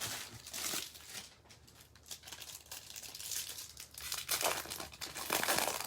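Crinkling and tearing of a foil trading-card pack wrapper as the pack is opened and handled, in two bouts: one at the start and a louder one from about four seconds in.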